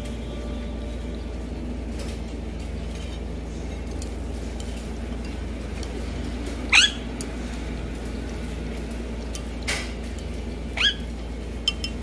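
Monk parakeet giving two short high calls that sweep down in pitch, about seven seconds in and again near eleven seconds, over a steady low background hum.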